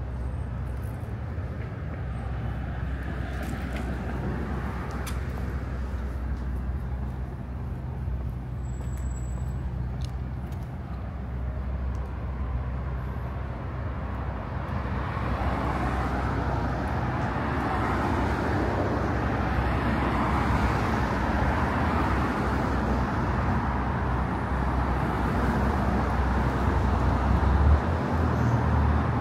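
Road traffic on a busy city boulevard: a steady rumble of passing cars that swells louder about halfway through as vehicles go by close. A short bump near the end.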